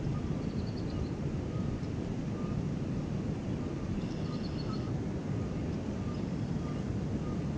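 Wind buffeting the microphone over a flowing river, a steady low rumble, with faint high bird chirps about half a second in and again around four seconds in.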